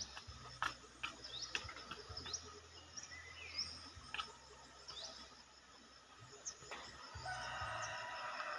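Birds chirping with short, quick rising calls, joined by a denser run of song near the end, with scattered sharp ticks and taps among them.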